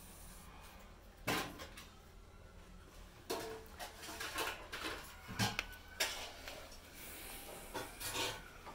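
Scattered knocks and clattering handling noises, a sharp one about a second in and a busier run of them in the middle and again near the end.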